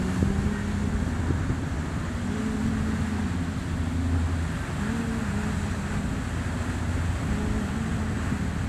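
A motor boat's engines running steadily at cruising speed, with wind on the microphone and the rush of the wake.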